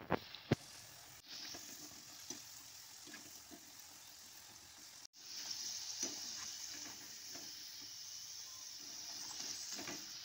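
Hot oil sizzling as potato and egg batter sticks deep-fry in a wok, a steady fizzing hiss that grows louder about halfway through. Near the start, two sharp clicks of a metal slotted skimmer against the pan as the pieces are turned.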